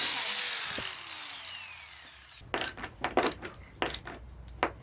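A power tool switched off, its motor winding down with a falling whine that fades over about two seconds. Then comes a handful of short knocks and clicks.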